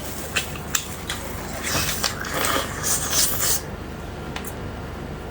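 Close-miked eating sounds: a few small clicks, then two longer wet, hissy stretches about two and three seconds in, as food dipped in river-snail noodle soup is eaten.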